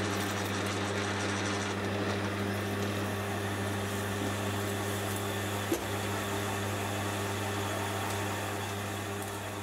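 Metal lathe running with a steady hum while an annular cutter in the tailstock cuts into a 1020 steel workpiece. There is one short click a little past halfway.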